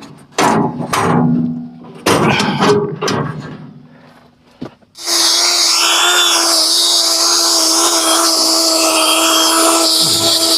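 A few short loud bursts, then about five seconds in a band sawmill with a freshly sharpened blade starts suddenly and runs steadily: a constant whine over a dense hiss.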